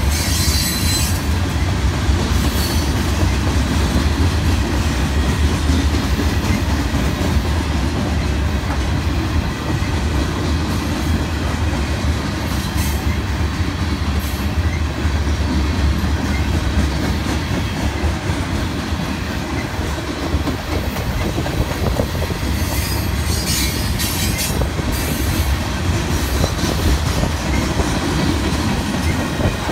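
Freight train's covered hopper cars rolling past at close range: a steady, loud low rumble of steel wheels on rail, with brief high-pitched wheel screeches a few times, near the start, around the middle and about three-quarters through.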